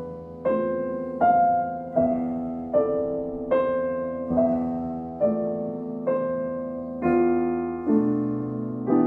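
Slow, gentle solo piano music, with a new note or chord struck about once a second and left to fade.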